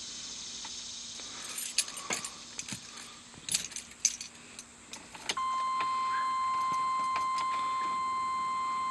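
Car keys jangling and clicking as the key is worked into the ignition. About five seconds in, a steady electronic warning tone comes on and holds without a break.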